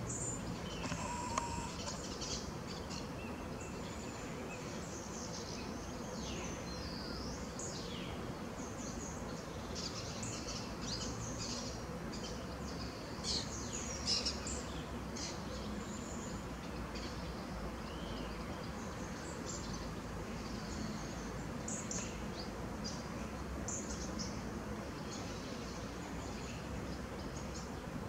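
Small birds chirping on and off over a steady low background rumble, with two brief louder sounds about halfway through.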